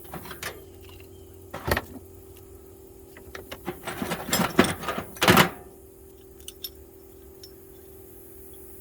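Metal hand tools and sockets clinking and clattering as they are handled and set into a toolbox, in scattered knocks with a busy run of clinks near the middle, over a steady low hum.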